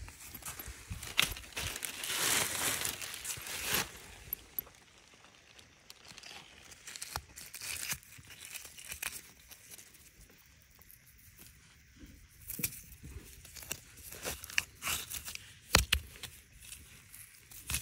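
Close, crackly handling noise: a rock and fingers rubbing and scraping near the microphone, with scattered sharp clicks. It is loudest for a couple of seconds near the start and comes back in short clusters later.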